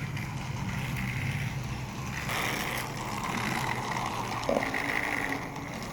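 Battery-powered toy train engine's small electric motor whirring steadily as it runs on plastic track, straining to climb a tunnel incline; the owner puts the struggle down to the battery.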